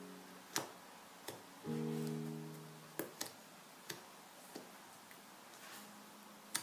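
Slime being squeezed and poked in a plastic tub, giving about seven sharp, irregular clicking pops, the loudest about half a second in and near the end. Soft piano-like background music plays underneath, with a chord about two seconds in.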